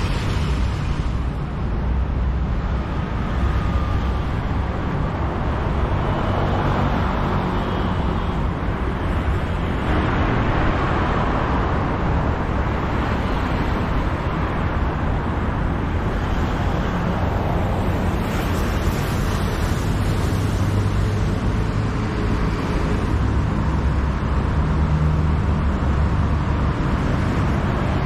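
Steady traffic noise on a busy city street: a continuous low rumble of vehicle engines.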